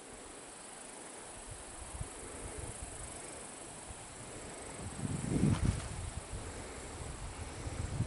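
Insects chirring steadily in the open summer air. A gust of wind rumbles on the microphone about five seconds in.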